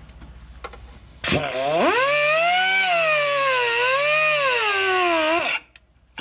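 Cut-off wheel spinning up about a second in and cutting into an exhaust manifold stud, its whine sagging and rising in pitch twice as it bogs under load, then stopping suddenly near the end.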